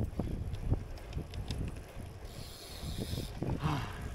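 Bicycle freewheel ticking as the bike coasts, a rapid run of small clicks over low wind and road rumble. A brief hiss comes in about two seconds in and stops about a second later.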